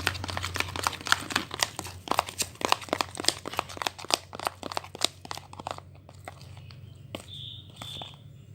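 Sticky homemade glue slime being mixed and worked by hand, giving a rapid run of crackling, clicking pops for about six seconds before it goes quieter. Two brief high squeaks come near the end.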